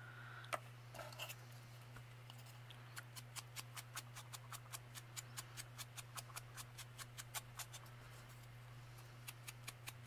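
Quick, light tapping of a foam ink dauber dabbing distress ink onto the edges of a small wooden pumpkin cutout, about three taps a second, starting about three seconds in. A faint steady hum runs underneath.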